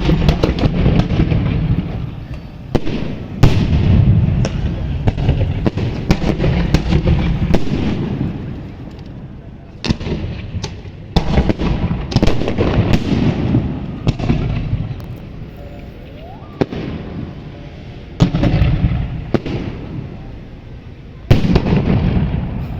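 Fireworks bursting over and over: sharp bangs and spells of dense crackling, with short lulls between volleys. The loudest bang comes about three and a half seconds in.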